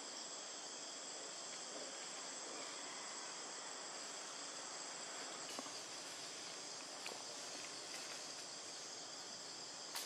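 Steady, high-pitched chorus of insects buzzing in the trees, with a few faint clicks about halfway through and near the end.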